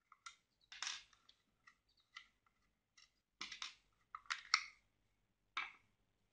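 Short plastic clicks and scrapes as a white plastic surface-mount wall socket is handled and turned over in the hands. There are about eight separate brief sounds, the loudest a little past four seconds in.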